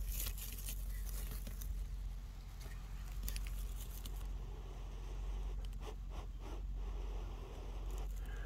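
Dry wood shavings rustling as they are pressed against an ember at first, then long, repeated breaths blowing on glowing leftover char to get the feather-stick curls to catch.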